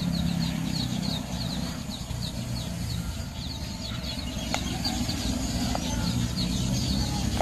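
A steady low engine hum with rapid high-pitched chirping repeating over it, and a few light clicks as a screwdriver works at the wiring of a dismantled flat iron.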